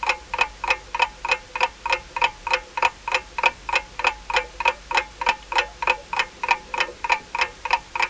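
Countdown timer sound effect: a clock ticking steadily at about four ticks a second while a quiz's ten seconds run out.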